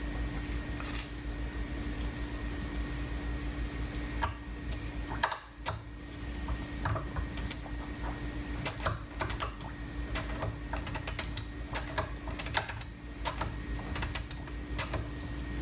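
Irregular clicking and tapping of hard plastic and metal as a clutch master cylinder and its bleeder-kit hoses are handled and worked on the bench during bench bleeding, over a steady hum. The clicks come thicker in the second half.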